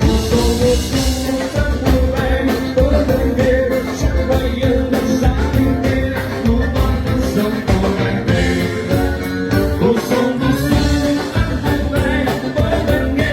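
Live gaúcho dance-band music with a steady dance beat under held melody notes.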